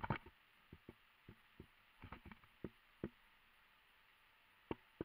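Faint, irregular muffled knocks and thumps of a helmet camera being jostled inside its waterproof case, over a light hiss, with the sharpest knocks right at the start and near the end.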